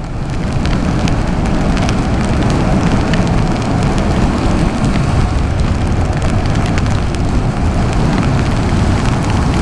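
Loud, steady wind rush on the microphone of a Yamaha MT-07 motorcycle riding fast in the rain, with engine and wet road noise mixed in.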